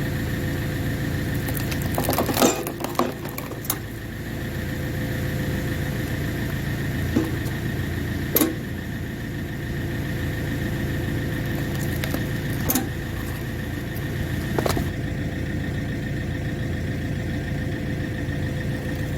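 Tractor engine running steadily while it drives a homemade hydraulic log splitter. A few sharp cracks or knocks break in over the hum, the loudest two about two and a half seconds in and after eight seconds.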